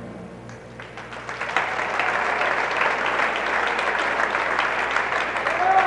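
Audience applauding in a gymnasium, swelling about a second in and holding steady, with a short cry rising over it near the end.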